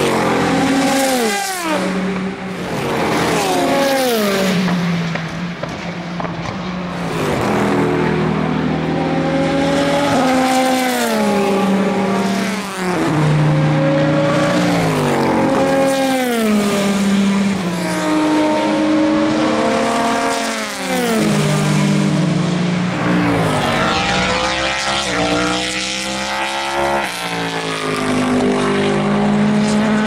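Morgan-Nissan LMP2 prototype's V8 racing engine at speed on track. Its note drops in pitch again and again, then climbs in a series of rising sweeps as it accelerates about three-quarters of the way through.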